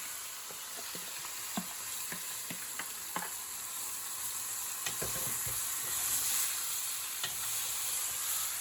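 Seasoned chicken sizzling in hot oil and browned curry in a pot as it is stirred, with a spoon scraping and knocking against the pot now and then.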